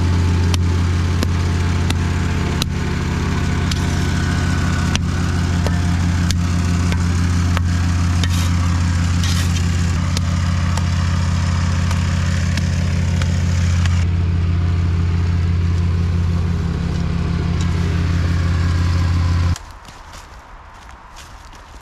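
A small petrol engine running at a steady speed, with a shovel scraping at the dirt now and then; the engine sound stops abruptly near the end.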